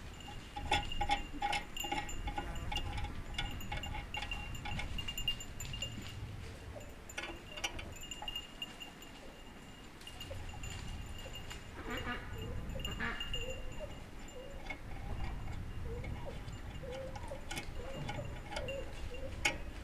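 Small metal parts clicking and clinking as they are handled and threaded together, with a faint high ringing tone coming and going.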